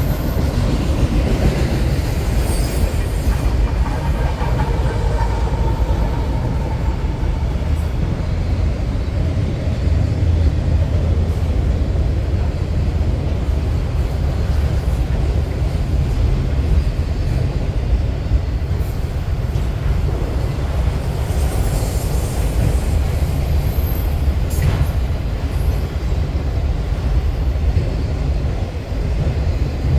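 Autorack freight cars rolling past: a steady low rumble of steel wheels on the rails, with occasional clicks at the rail joints. A faint wheel squeal comes in about four seconds in and fades a few seconds later.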